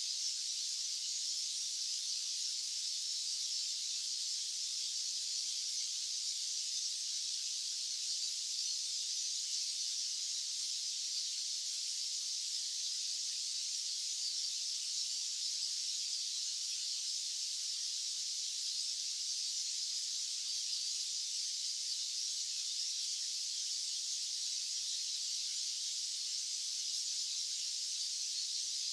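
Steady white-noise hiss, even and unchanging, sitting high in pitch with no low rumble.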